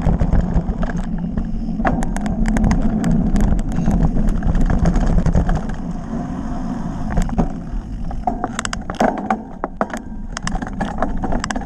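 Wind buffeting an action camera's microphone on a bicycle descending fast, close to 30 mph, with the tyres rumbling over rough ground. Sharp clicks and rattles come often, thicker in the second half.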